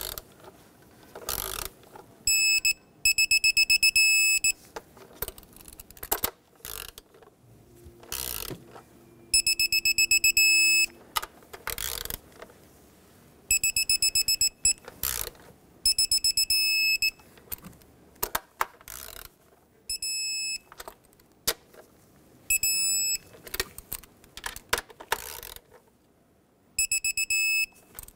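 Digital torque wrench beeping in quick pulsed bursts of about a second, about eight times, each time an upper intake manifold bolt reaches the set 89 inch-pounds. Ratchet clicks between the bursts as the next bolt is turned down.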